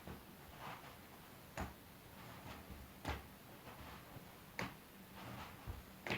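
Hands patting against the body and ribs in a steady rhythm as the torso twists side to side: a sharp pat about every second and a half, with softer rustling between.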